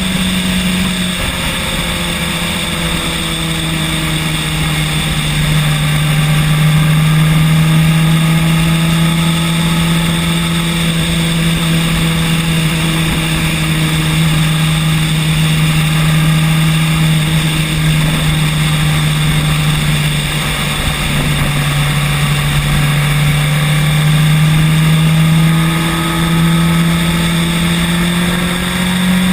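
Electric scooter's hub motor humming steadily while riding. The pitch drops a little about a second in and rises again near the end as the speed changes, over a low rumble of road and wind noise.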